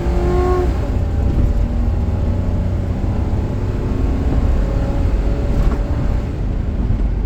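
V8 car engine running steadily, its sound heavy in the low end, with no clear rise or fall in revs.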